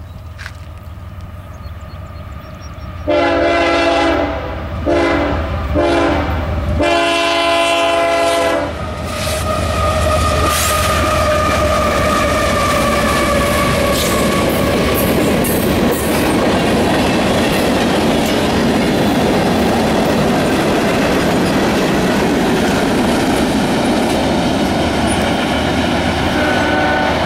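CSX freight train's diesel locomotive sounding its air horn in four blasts, the last the longest, then running past loudly, followed by the freight cars with a steady clickety-clack of wheels over the rails.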